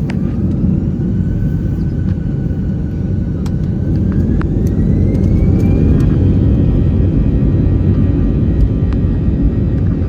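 Airbus A320 jet engines heard from inside the cabin: a steady low rumble with a whine that rises in pitch over the first six seconds and then holds as the engines spool up to higher thrust.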